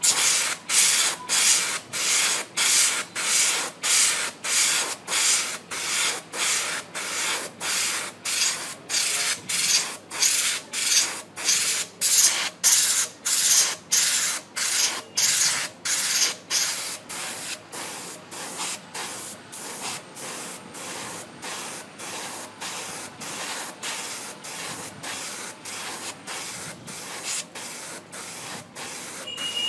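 Airbrush spraying air from a 3-litre bottle air tank with the compressor switched off, hissing in short regular bursts about one and a half times a second. The hiss grows weaker past the middle as the bottle's pressure runs down.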